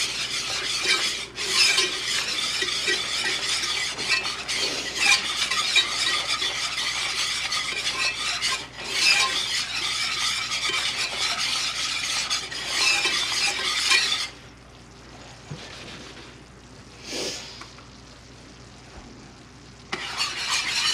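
Metal wire whisk stirring and scraping a thick flour roux around a red skillet in quick, uneven strokes. The whisking stops about fourteen seconds in, leaving a faint sizzle from the roux cooking, and starts again just before the end.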